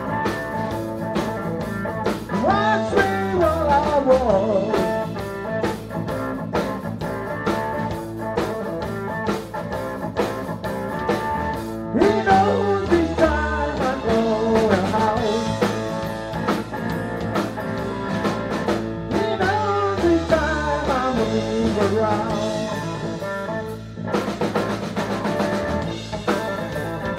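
Live blues band playing: electric guitar, drum kit and keyboards together, with a steady beat.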